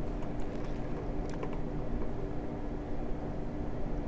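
Soft sipping of a drink through a plastic straw, over a steady low hum with a faint rumble and a few small ticks.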